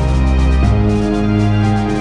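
Background music with a steady beat and a bass line that changes note about every half second.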